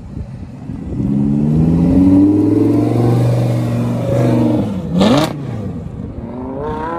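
Audi R8 accelerating hard away, its engine revving up with the pitch climbing. About five seconds in the revs dip and climb again with a short sharp crack.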